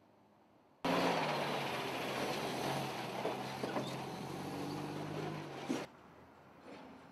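Semi-truck's diesel engine running at close range, a steady low engine note under loud broad noise. It starts abruptly about a second in and cuts off sharply near six seconds, leaving faint background sound.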